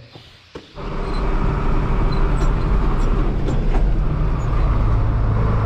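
Farm tractor engine running steadily, coming in abruptly about a second in, with a few light clicks.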